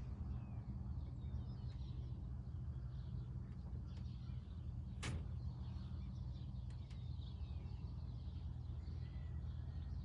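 Faint bird chirps over a steady low hum, with one sharp click about five seconds in.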